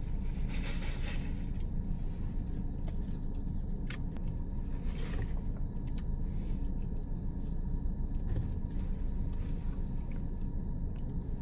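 Steady low rumble of a car idling, heard from inside the cabin, with a few faint clicks and mouth sounds from eating.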